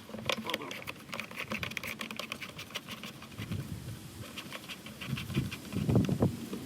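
Scattered light clicks and taps, with a few duller knocks near the end.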